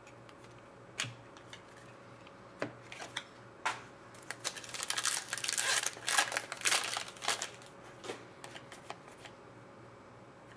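An Upper Deck hockey card pack's foil wrapper torn open and crinkled, a dense crackle lasting about three seconds in the middle. Before it come a few light taps of cards being set down, and after it soft rustling and ticks of cards being handled.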